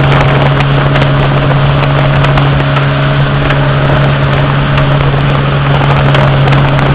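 Motorboat engine running steadily at cruising speed, a constant low drone with a rushing noise of wind and water over it.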